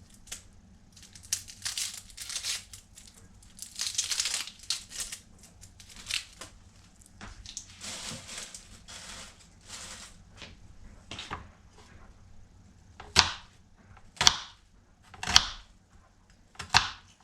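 Onion being peeled and cut with a kitchen knife on a cutting board: papery rustling and tearing at first, then four sharp knife chops about a second apart near the end.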